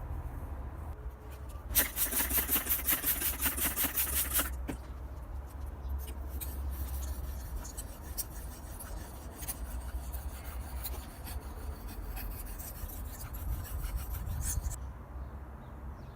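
Hand abrasive work on an old pocket knife, rubbing back and forth: a quick, loud run of scraping strokes, about five a second, for a couple of seconds, then softer, irregular rubbing that stops near the end.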